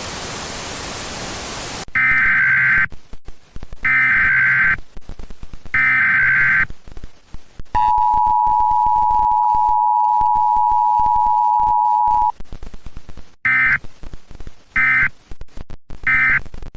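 Emergency Alert System broadcast tones. About two seconds of static hiss come first, then three SAME header data bursts, each under a second and about two seconds apart. Next comes the two-tone EAS attention signal, held steady for about four and a half seconds, and then three shorter data bursts near the end.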